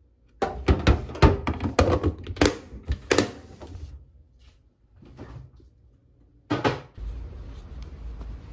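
Clear plastic food container being handled and its lid pressed on: a quick run of sharp clicks and knocks for about three seconds, then one more sharp click about six and a half seconds in. After that comes a steady low rumble of outdoor background noise.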